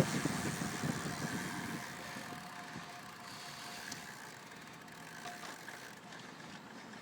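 Wind rush on the microphone dying away over the first two seconds, leaving a faint steady hum.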